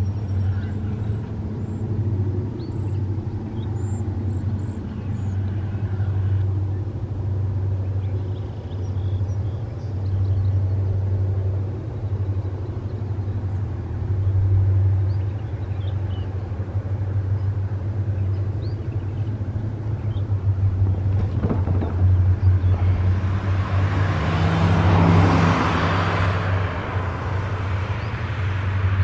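Freight cars of a Wheeling & Lake Erie loaded stone train rolling by at a distance: a steady low rumble of steel wheels on rail, with a few faint short high chirps in the first several seconds. Over the last several seconds a louder rushing sound swells, peaks about 25 seconds in, and fades.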